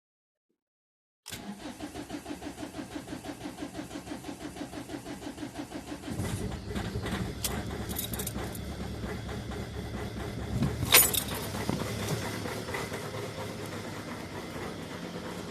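Ford Mondeo Mk4 1.8 TDCi four-cylinder diesel engine cranking on the starter, about four to five pulses a second, for nearly five seconds before it catches about six seconds in and keeps running: a hard cold start. A loud sharp knock comes about eleven seconds in.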